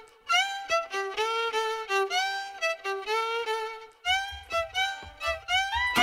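Electro-swing background music: a violin plays a melody with sliding notes, and a low beat joins about four seconds in.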